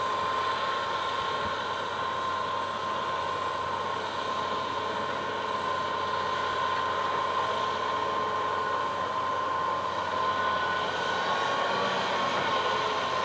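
John Deere 230C LC hydraulic excavator running steadily as its boom and bucket work, a steady whine sitting over the engine sound.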